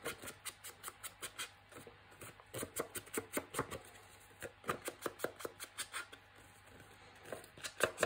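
Ink blending tool dabbed rapidly against the edges of a paper tag to distress-ink them: quick runs of soft taps, about four or five a second, with short pauses between runs.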